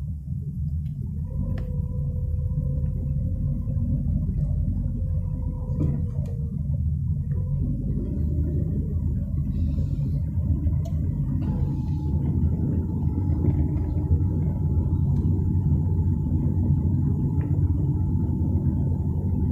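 Low, steady rumble of road and engine noise inside a moving car's cabin, with a faint steady whine above it.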